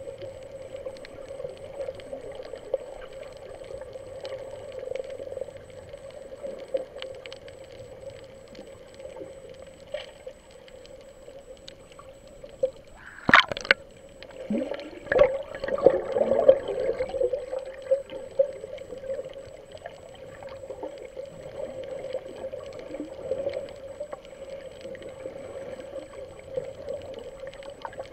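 Underwater sound picked up by a camera held below the surface: a steady muffled hum with faint scattered clicks. About halfway through comes a sudden loud burst of water noise, followed by a few seconds of bubbling and gurgling.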